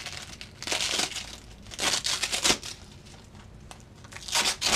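Hook-and-loop (Velcro) strips being pulled apart by hand: three short rips.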